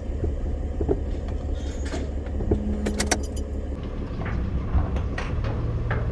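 Steady low engine rumble heard from inside a car, with a few light clicks and jingling ticks about one, two and three seconds in.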